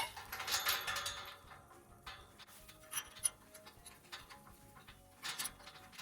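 Scattered light clicks, taps and rattles of a metal clamp and conduit pipe being handled and fitted, with a brief louder rattle about five seconds in.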